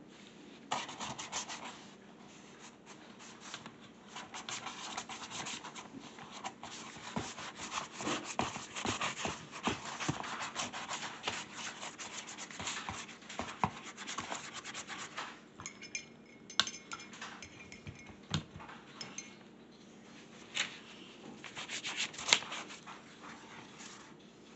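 Paintbrushes scrubbing paint onto paper, an irregular scratchy rubbing that dies down about two thirds of the way through, after which a few sharp taps and clicks are heard.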